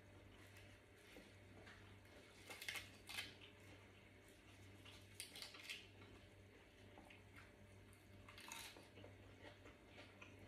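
Lettuce leaves being torn and handled with the fingers, giving a few short crisp crackles: twice a few seconds in, then once more near the end. A faint steady hum lies underneath.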